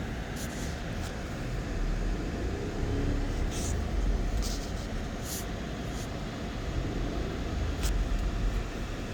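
Lexus GX 470's 4.7-litre V8 running with a steady low rumble, broken by several short, sharp crackles or ticks.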